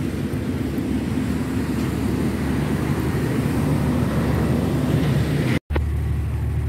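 Steady low rumble of road traffic. It breaks off abruptly about five and a half seconds in, and a steadier low hum follows.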